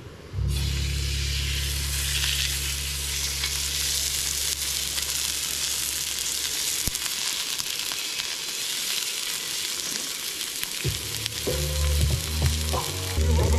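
Food sizzling steadily in a hot pan, starting suddenly about half a second in. A low steady hum runs under it for the first half, and background music comes in near the end.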